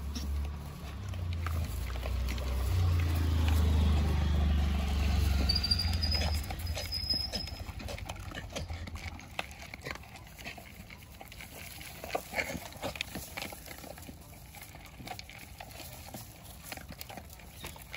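Stray dog and puppies eating dry kibble from plastic bowls: a steady stream of small crunches and clicks of chewing. A low rumble fills the first six seconds or so, loudest a few seconds in, then fades out.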